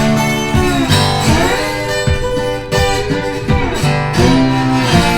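Background music led by acoustic guitar, strummed and plucked chords.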